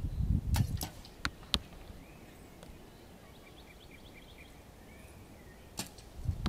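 A few sharp clicks and snaps in the first two seconds and another near the end, with a quiet stretch between them in which a bird chirps faintly in a quick series of short notes.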